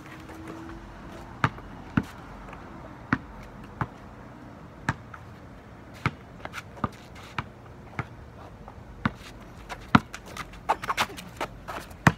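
A basketball bouncing on pavement as it is dribbled: sharp single bounces about once a second, coming faster in a quick run near the end.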